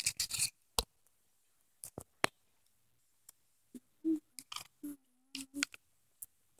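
Scattered sharp clicks and rustles of a spiral-bound notebook's paper pages being handled and turned close to the microphone, with near-silent gaps between them.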